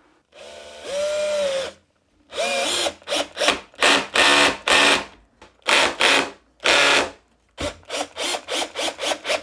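One-handed quick-release bar clamps being fitted and tightened along the edge of a wooden worktop: a series of short ratcheting squeezes, coming in a quick run of about eight near the end.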